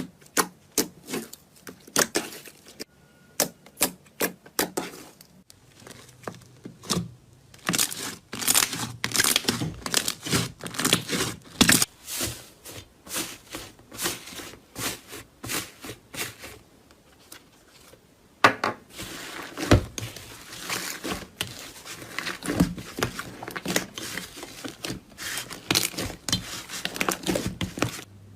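Hands squishing and poking slime, making a string of sharp wet clicks and crackles. They are sparse for the first several seconds, then dense, with a brief lull about two-thirds of the way through.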